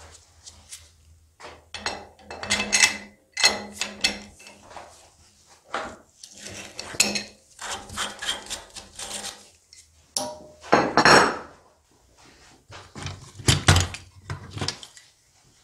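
Hand tools knocking, tapping and clinking against the metal of a motorcycle rear shock absorber as it is dismantled, in irregular bursts with short ringing tails. A loud cluster of clatter comes near the end as a tool is handled in a metal tray.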